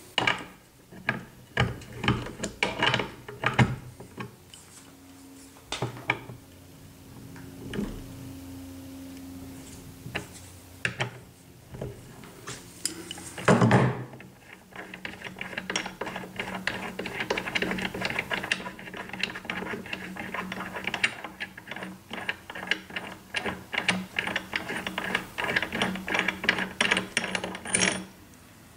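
Socket ratchet clicking as the bolts that join the two halves of a C3 Corvette front brake caliper are turned out, with a few scattered clicks at first, one loud knock about halfway through, then a long rapid run of clicks.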